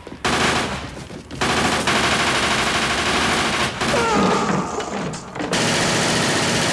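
Sustained automatic gunfire from Thompson submachine guns, as a film sound effect: a short burst, a break of a fraction of a second, then long unbroken rattling fire that keeps on to the end.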